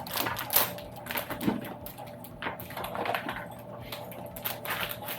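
Small plastic Lego pieces clicking and rattling as they are handled and sorted, in irregular sharp clicks.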